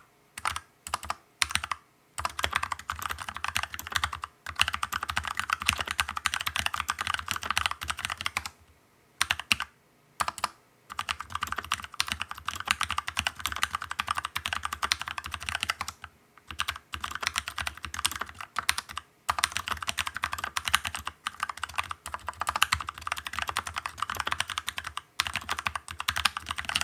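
Fast typing on an iGnic R-IT 68-key mechanical keyboard with Huano brown tactile switches, lightly hand-lubed, and its stock keycaps: a dense stream of key clacks with a few short pauses.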